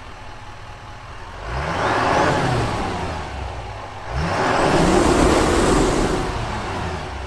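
2024 Chevrolet Silverado 2500 HD's 6.6-litre Duramax V8 turbodiesel, heard at the exhaust tip, idling and then revved twice, about a second in and about four seconds in. Each rev rises and falls back toward idle, and a faint turbo whistle climbs with the revs.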